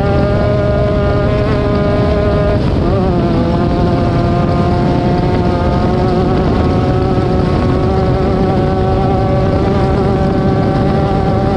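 Off-road race vehicle's engine running loud at high, steady revs, its pitch dipping briefly about three seconds in before holding steady again.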